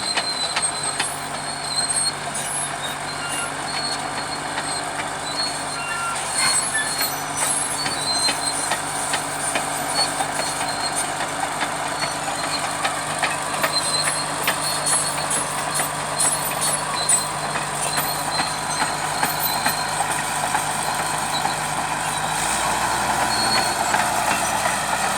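Bulldozer's diesel engine running steadily, with scattered metallic clanks and squeaks from the machine. The engine note changes near the end.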